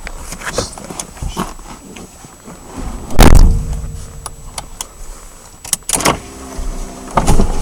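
A 1987 Mitsubishi Starion's turbocharged four-cylinder engine starting with a loud burst about three seconds in, after a few clicks, then running at idle with a steady hum. The idle is the rough idle the owner is showing. There are a few more clicks near 6 s.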